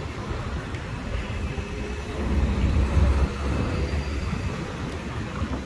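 Road traffic rumble at a city junction: a deep, steady rumble that swells louder for about a second, starting about two seconds in.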